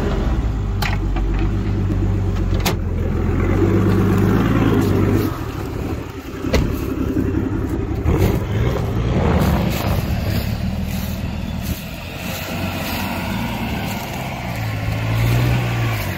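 Off-road vehicle's engine running under load as it crawls up a steep, rough track, rising in pitch near the end. A few sharp knocks come through over it.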